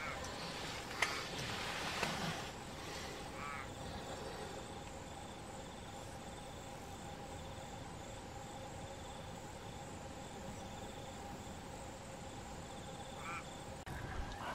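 Wetland ambience: a steady background hiss and faint hum, with a faint, rapidly pulsing high-pitched call running through it and a few short chirps. A single sharp click about a second in.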